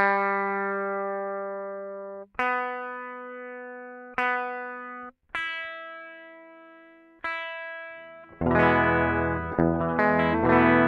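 Electric guitar played into a Line 6 UX2 interface: single strings are picked one at a time, each left to ring and fade, while the GearBox tuner reads them, as when tuning. About eight seconds in, louder full chords are strummed, struck again a couple of times.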